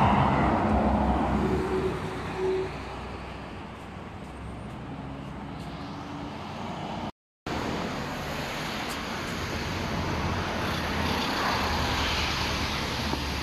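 Cars passing on a road: tyre and engine noise swells and fades, once right at the start and again about eleven to twelve seconds in. A brief dead gap about seven seconds in.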